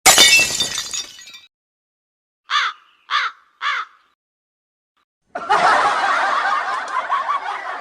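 Comedy sound effects: a sudden crash at the start, then three short crow-like caws about half a second apart, then from about five seconds in a dense, wavering, noisy sound.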